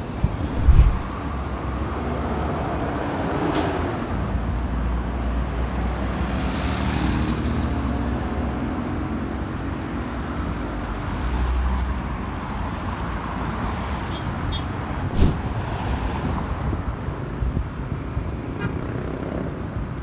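Road traffic on a busy city avenue: a steady low rumble of buses and cars passing, with a short hiss about seven seconds in and a couple of brief clicks.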